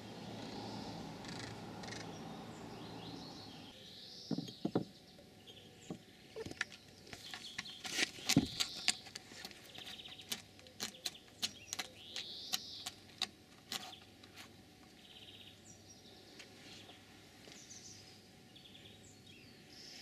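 A cat's claws scratching dry, weathered wood: a run of short, sharp scrapes that starts a few seconds in and stops after about ten seconds. Birds chirp in the background.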